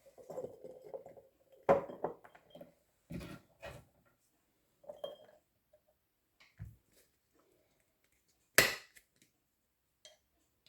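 Kitchen utensils clinking and knocking against a glass bottle as honey and chopped onion are layered in. It is an irregular run of separate taps and clinks, with some scraping in the first second or so and the sharpest clink about eight and a half seconds in.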